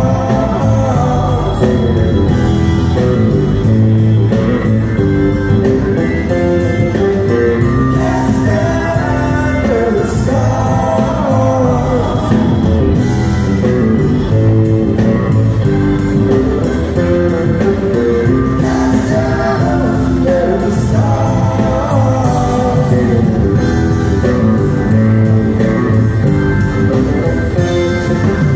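Live rock band playing: electric guitar, Hammond organ, bass and drums, with singing over it.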